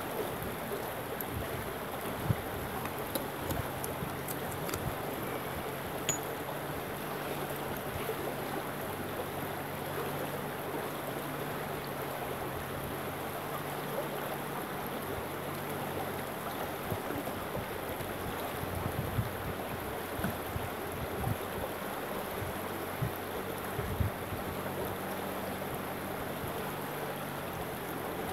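Shallow stream running over rocks, a steady rushing of water, with a few faint short knocks now and then.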